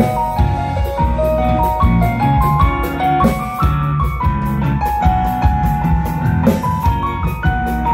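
Live rock band playing an instrumental passage: electric guitars, bass, keyboard and drum kit, with a stepping melodic lead line over a steady drum beat.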